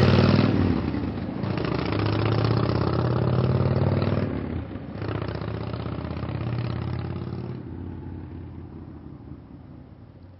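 Motorcycle engine accelerating away, rising in pitch at first and dipping briefly about five seconds in, then fading out into the distance.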